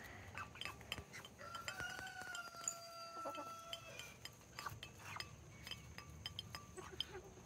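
Chickens pecking food from a dish, a scattered run of light clicks and clinks. A rooster crows once, faint, a long steady call from about one and a half to four seconds in.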